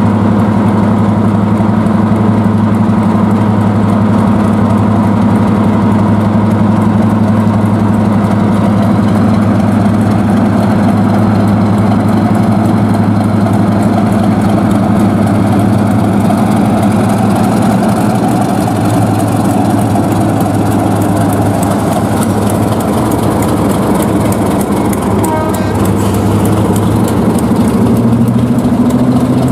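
Class 31 diesel-electric locomotive's English Electric V12 engine running steadily as the locomotive moves slowly, shortly after a cold start, with a deep, even note that rises slightly in pitch near the end.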